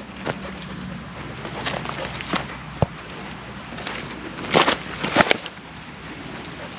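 Irregular footsteps crunching and scuffing through woodland ground cover on a steep slope, with the loudest crunches about two-thirds of the way in.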